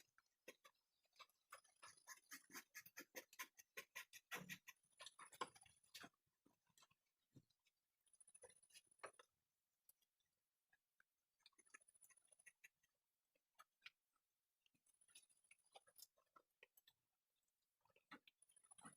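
Faint bursts of rapid clicking and tapping from carving chisels cutting into hardwood, densest in the first few seconds and then coming in short clusters every few seconds.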